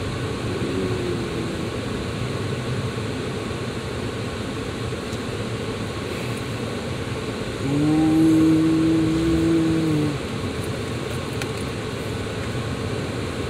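Steady road and engine noise inside a moving car's cabin. About eight seconds in, a louder held tone sounds over it for roughly two seconds.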